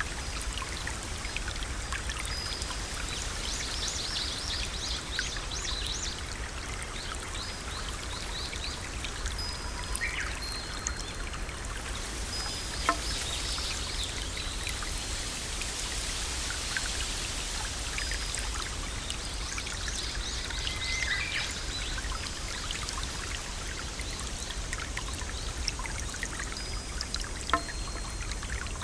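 Waterfall: water falling and splashing in a steady, even rush, with now and then a brief burst of high-pitched repeated notes over it.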